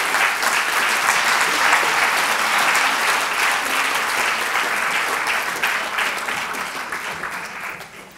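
Audience applauding: a large seated crowd clapping steadily, dying away near the end.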